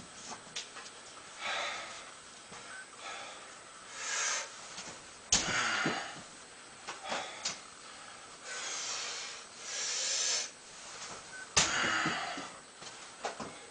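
A person breathing hard in several loud hissing breaths, with two sharp thumps about six seconds apart, each followed by a brief rustling noise.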